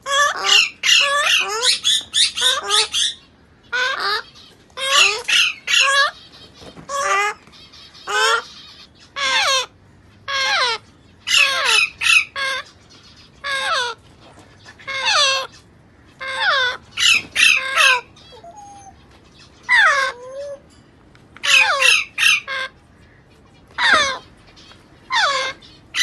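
Congo African grey parrot chicks calling: short, harsh squawks repeated every second or so, often in quick runs of two to four.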